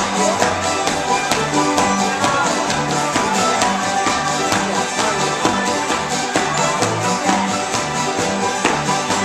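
Acoustic string band playing a dance tune: guitars and fiddle over a steady beat and a walking bass line.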